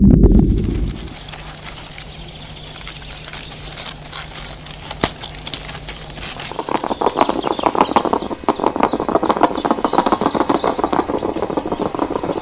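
Birds chirping outdoors: a low rumble fades out in the first second, then a quick run of short repeated chirps starts about halfway through and carries on to the end.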